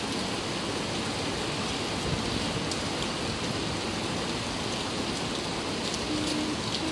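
Steady rain falling, a continuous even hiss with a few light ticks of drops. A faint low hum comes in about six seconds in.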